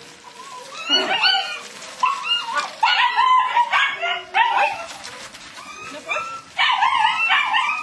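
A puppy yapping and yipping: rapid high-pitched yaps in two runs, one from about a second in to the middle and another near the end.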